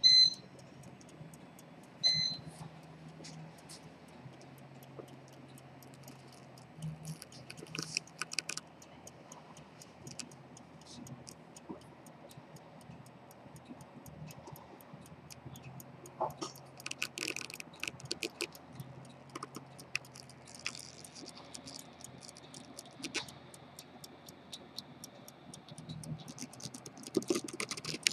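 Two short, high electronic beeps about two seconds apart, then scattered small metallic clicks and taps from watchmaker's tools and pocket-watch parts being handled, over a low steady hum.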